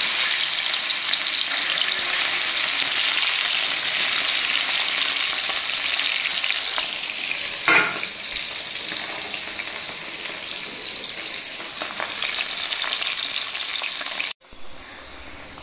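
Whole small bata fish frying in hot oil in a metal kadai: a steady loud sizzle, with a brief knock about halfway through. Near the end the sizzle cuts off abruptly, leaving a faint low hum.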